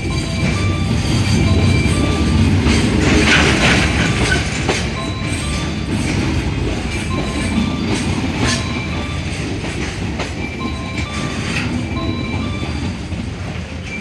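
Container freight train rolling past: a low rumble with wheels clacking over rail joints, fading away as the last wagons go by.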